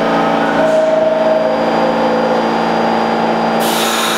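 R46 subway train moving slowly through the station, its motors giving a steady hum with a whining tone that shifts in pitch. About three and a half seconds in, a sharp hiss starts over the hum.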